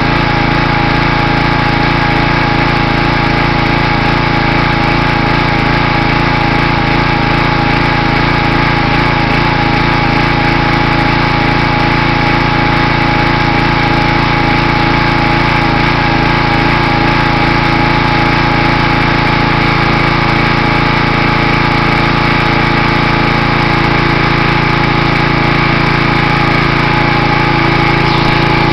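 Small gas engine of a Simoniz 2350 PSI pressure washer running steadily at a constant speed.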